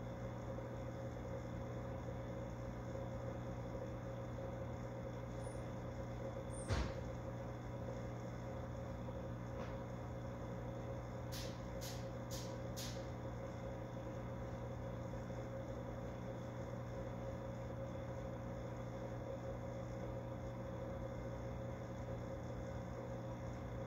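Steady hum of fish-tank equipment, with a single sharp knock about seven seconds in and a quick run of four faint ticks, about two a second, around halfway.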